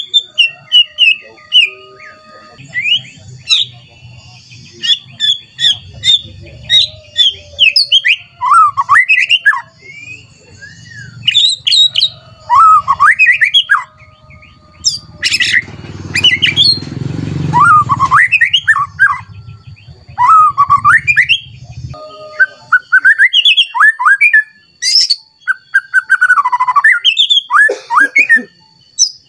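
White-rumped shama singing a long, varied, agitated song of rapid whistled notes and rising and falling slides, full of mimicked phrases. About halfway through comes a harsh, rasping passage.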